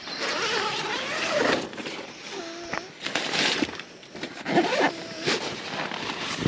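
Snoring and farting sounds: several irregular rasping bursts, some carrying short wavering pitched tones.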